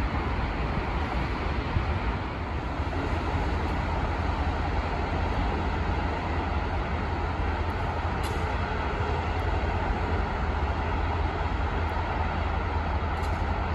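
Weed sprayer train's engine running, a steady low rumble with hiss.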